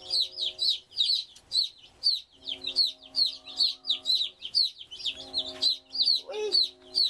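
Baby chicks in a brooder peeping nonstop, short high downward-sliding cheeps from several birds, about three a second.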